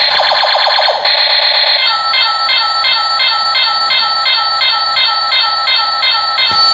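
A bootleg toy sword's sound chip plays electronic sound effects through its small speaker, thin with no bass. It starts with quick falling zaps, then from about two seconds in settles into a repeating beeping pattern about three times a second.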